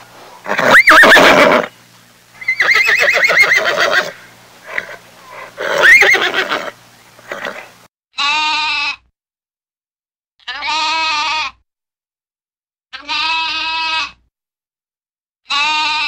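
A horse whinnying and neighing, loud calls with sliding pitch and a wavering middle stretch. About halfway through it gives way to sheep bleating: four level bleats of about a second each, evenly spaced, with silence between.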